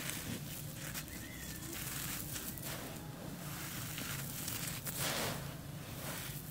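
Hands scooping and crumbling loose dry charcoal powder, which falls back onto the heap in gritty, crunchy rustles, with a longer pouring hiss about five seconds in.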